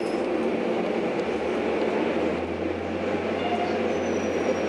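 Steady rumble and hum of a passenger train heard from inside the carriage, with a few faint thin high-pitched tones near the end.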